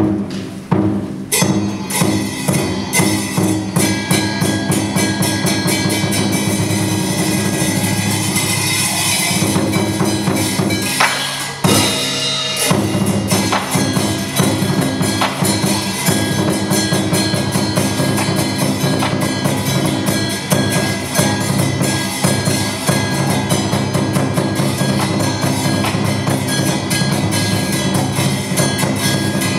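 Live traditional Vietnamese water puppet orchestra playing loud, fast drumming and percussion over held instrument notes. It starts abruptly with a strike and eases briefly before picking up again.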